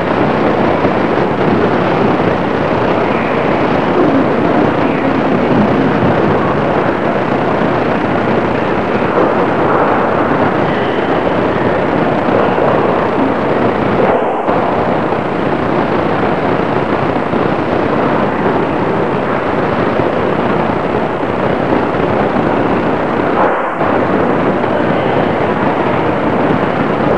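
Loud, steady rushing noise of a degraded old camcorder soundtrack in a gymnasium, with no distinct sound standing out. It cuts out briefly twice, about 14 and 24 seconds in.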